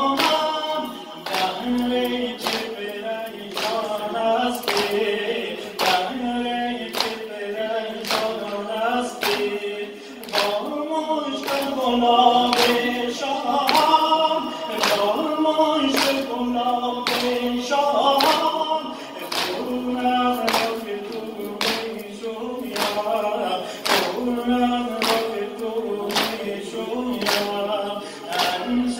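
A male reciter chanting a Shia mourning lament (noha) over a microphone, with the congregation's voices joining in. Rhythmic chest-beating (sineh-zani) by the mourners keeps time at about one stroke a second.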